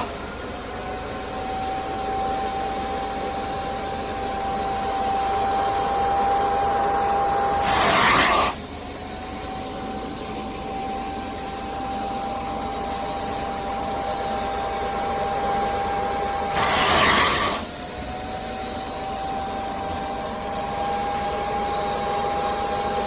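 Kärcher Puzzi 10/1 spray-extraction cleaner's suction motor running with a steady whine that slowly climbs in pitch. Twice, about eight seconds apart, a loud rush of noise breaks in and the whine drops back before climbing again.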